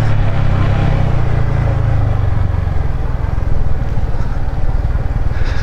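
Yamaha MT-15 single-cylinder motorcycle engine running in second gear down a steep slope. Its steady note fades about two seconds in, leaving a noisy low rumble.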